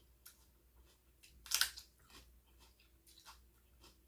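Close-miked eating sounds: chewing with scattered small wet clicks and one louder, sharper crunch about a second and a half in.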